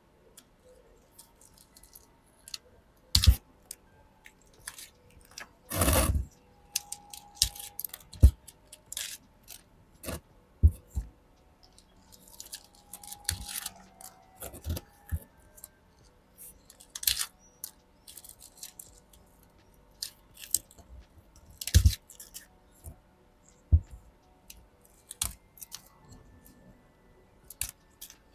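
Irregular crunches, clicks and rustles of hands working over potted succulents, pulling off dry old leaves and handling the plants and pots, with one longer rustle about six seconds in.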